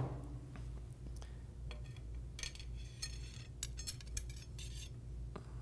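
FX Crown's steel barrel liner being slid into its barrel sleeve: a run of faint metallic clicks and scrapes starting about two seconds in and lasting about three seconds, over a low steady hum.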